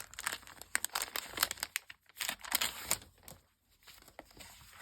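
Paper and its packaging crinkling and rustling in quick crackles as a packet of craft papers is opened and handled, busiest in the first three seconds and fainter after.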